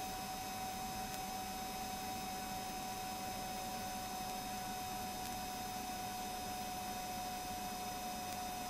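Steady hiss with a constant electrical hum tone from the helicopter's headset intercom line. No rotor or engine beat comes through.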